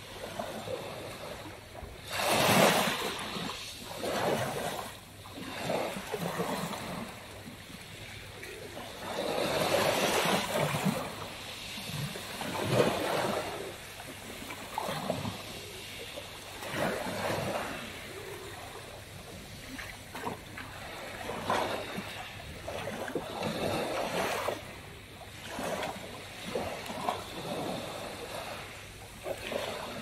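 Small sea waves lapping and washing up a pebble beach, swelling and falling back in irregular surges every few seconds.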